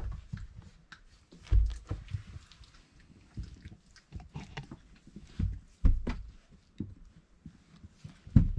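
Four-week-old Irish Setter puppies play-fighting: irregular scuffles and bumps on the pen bedding, with small puppy vocal sounds among them.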